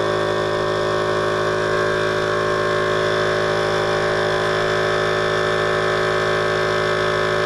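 All In One Wine Pump's vacuum pump running with a steady hum, pulling vacuum that draws wine up the tubing into a bottle.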